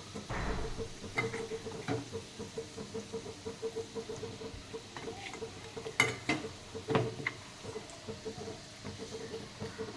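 Ground masala frying in oil in a pan while a spoon stirs it: a steady low crackle with scrapes and sharp knocks of the spoon against the pan, the loudest knocks about six and seven seconds in.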